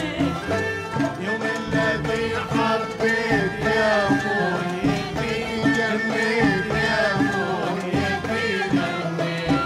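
Live Iraqi ensemble playing an instrumental passage: ouds and violins carry a wavering Middle Eastern melody over steady drum beats.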